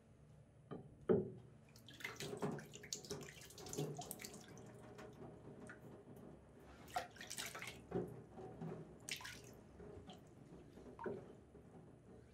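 Water splashing and dripping as a whetstone in its holder is wetted by hand from a water tray, with a sharp knock about a second in.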